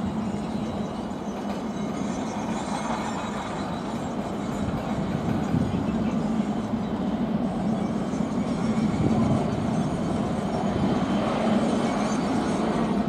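Jet engines of a Boeing 737 airliner on the runway, a steady rumble heard from a distance that slowly grows louder.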